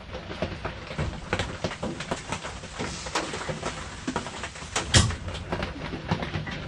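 Irregular light clicks and knocks of hand tools working at a pickup truck's door hinge to free the hinge pins, with one louder knock about five seconds in.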